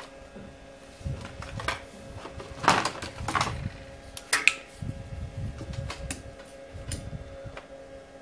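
Light metallic clicks and clatter of hand tools on a repair bench, with a few sharper clicks in the middle, over a steady faint hum.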